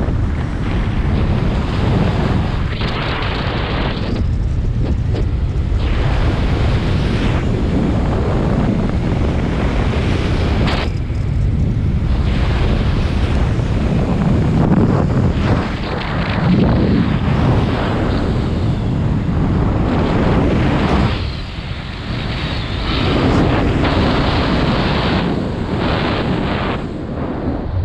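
Strong wind buffeting the action camera's microphone from the airspeed of a speedflying wing in flight, a dense rushing roar that surges and eases every few seconds.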